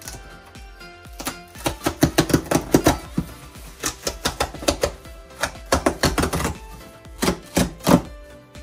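A cardboard box being opened and its contents handled by hand: a quick, uneven run of sharp clicks, scrapes and crinkles, over background music.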